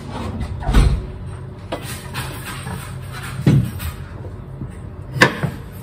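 A few dull knocks and thumps of kitchenware being handled at a counter, over a steady low hum.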